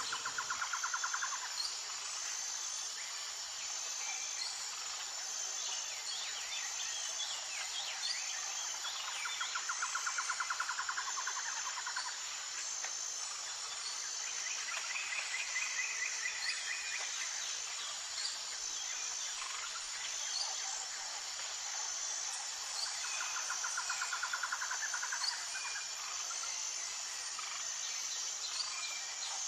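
Outdoor forest ambience: a steady high-pitched insect drone, with rapid pulsing trills that come and go several times.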